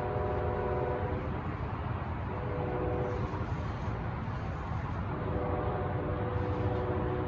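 Altamont Corridor Express commuter train's horn sounding a steady multi-note chord in blasts: one ending about a second in, a short one a little later, and another long one from about five seconds in, over a steady low rumble.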